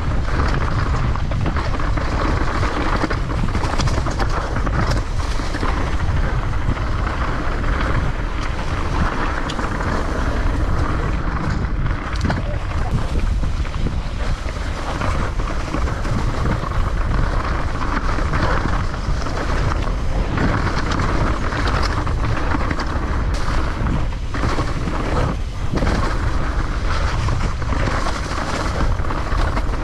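Wind rushing over the microphone with a downhill mountain bike's tyres rolling fast over rough, chewed-up dirt trail, the bike rattling and knocking over bumps.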